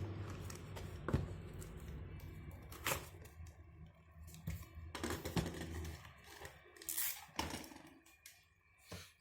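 Packaging being handled by hand: scattered scrapes, rustles and light knocks. A low hum fades away over the first few seconds.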